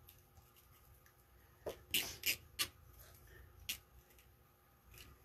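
Burlap petals rustling and scratching as hands press and tuck them into a wreath flower board: a few short scratchy rustles bunched around the middle, otherwise quiet.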